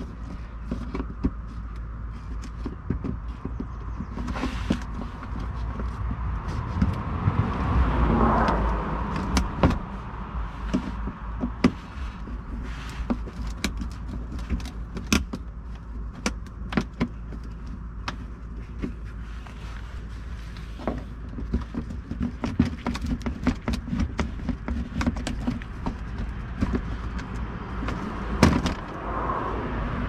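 Scattered clicks, knocks and scrapes of a screwdriver and fingers working the screws and clips of a Toyota Highlander's plastic underbody trim panel, over a low steady rumble.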